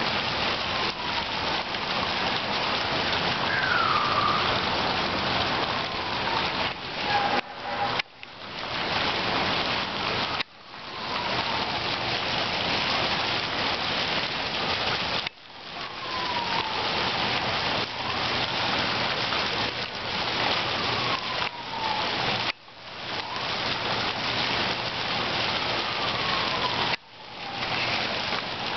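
A large structure fire burning, a dense steady crackling and rushing that drops away abruptly a few times and swells back. Faint falling siren-like tones come through now and then.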